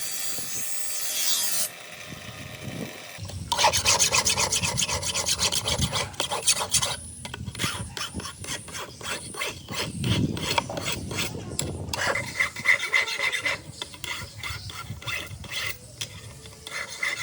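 A file scraping steel in quick repeated strokes, starting a few seconds in, as on a hand-forged sickle blade.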